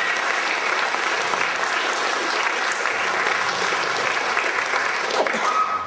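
Theatre audience applauding, a steady, even clapping that lasts throughout, with a brief steady tone near the end.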